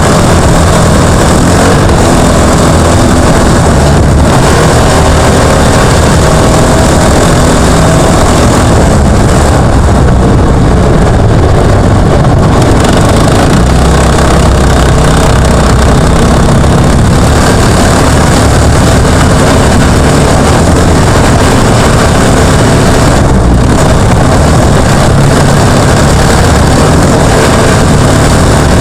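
Jr1 offroad trophy kart's engine running hard, heard close up from the kart itself: a very loud, unbroken engine drone whose pitch keeps shifting up and down with the throttle, over rattling and wind noise.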